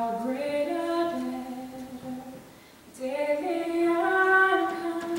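A young woman singing solo and unaccompanied: two phrases of long held notes, with a short pause for breath about two and a half seconds in.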